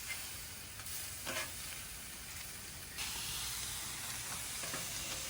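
Steak and sausage frying, a steady sizzling hiss that gets slightly louder about three seconds in.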